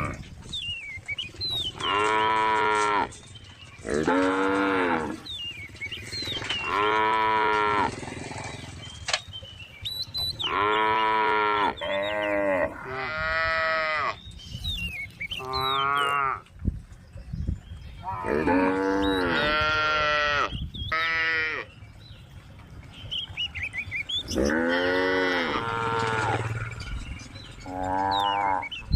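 Cows mooing again and again, about a dozen calls of roughly a second each, some overlapping, with small birds chirping in the gaps.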